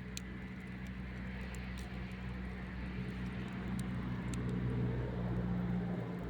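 Campfire burning with a steady low rumble and a few scattered sharp crackles and pops; the rumble swells a little in the second half.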